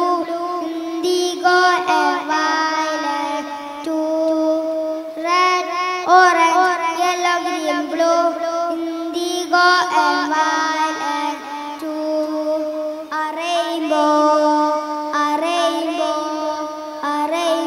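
A young boy singing solo through a stage microphone, holding and sliding between notes in phrases with short breaks between them.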